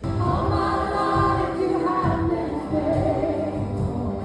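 Music with singing, a worship song with held sung notes over a steady low beat, coming in suddenly.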